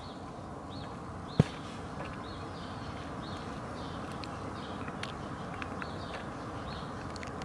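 Short bird chirps repeating about every half second over a steady outdoor hiss, with one sharp knock about a second and a half in.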